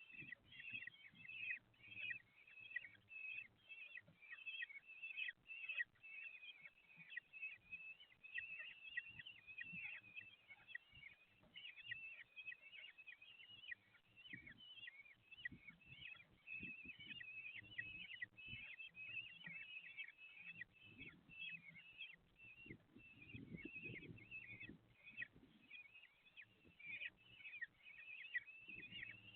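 Common kestrel chicks calling continuously, a rapid stream of thin high chirps, typical of nestlings begging during a feeding. Soft dull bumps from movement in the nest box, heavier about three-quarters of the way through.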